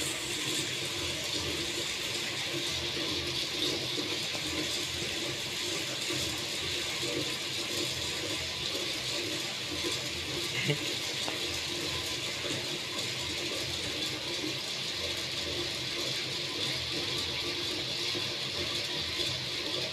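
Popcorn machine running with a steady hiss.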